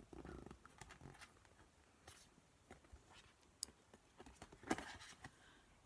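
Faint rustling and soft clicks of large matte oracle cards being handled and slid one behind another, with a short rustle at the start and a slightly louder brush of cards about five seconds in.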